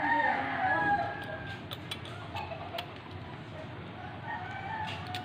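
A rooster crowing twice, once at the start and again about four seconds in, with faint clicks of handling in between.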